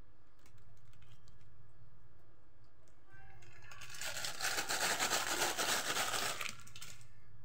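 Crinkling, rustling noise for about three seconds, starting about four seconds in, as flour, salt and black pepper are shaken into a pot of water. A low steady hum lies underneath.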